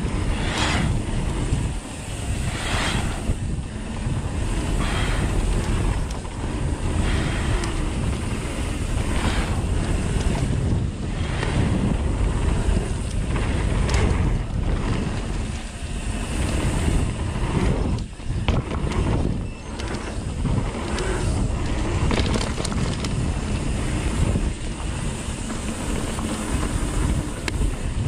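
Wind rushing over the microphone of a mountain biker's camera on a fast trail descent, with tyres rolling over dirt and scattered knocks and rattles from the bike.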